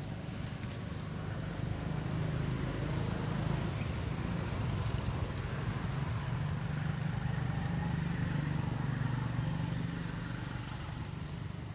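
Low, steady hum of a motor engine, growing louder about two seconds in and easing off again near the end.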